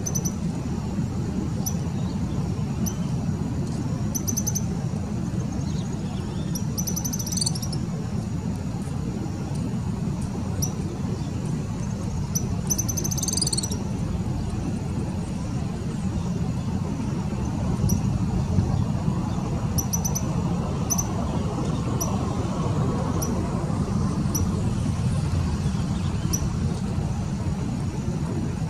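Tropical kingbird calling: scattered high, thin twittering notes, with two longer rapid trills about seven and thirteen seconds in. Under the calls runs a louder, steady low rumble of traffic.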